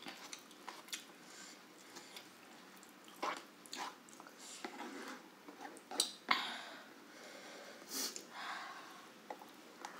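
Close-up eating sounds: wet chewing and mouth smacks as grilled chicken and rice are eaten by hand, with scattered short clicks and a few louder bursts about six and eight seconds in.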